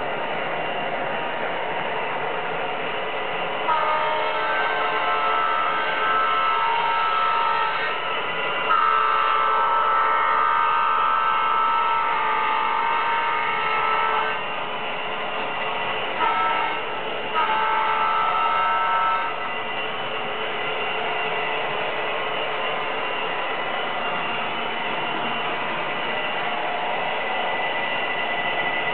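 Model train sound decoder sounding a locomotive's multi-tone horn through its small speaker over a steady running sound. It gives two long blasts, then a short one and a long one, the long-long-short-long grade-crossing signal.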